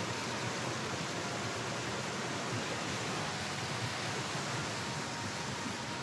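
Mountain stream pouring down a small rocky waterfall: a steady, even rush of water.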